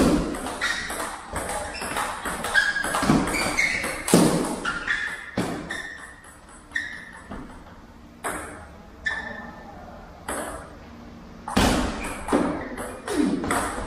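Table tennis ball struck back and forth in rallies: quick runs of sharp clicks as it hits the paddles and the table, echoing in the hall. The clicks thin out to a few single ones in the middle between points, then a new quick rally starts near the end.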